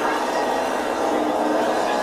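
Chainsaw engines running at a steady pitch, mixed with voices.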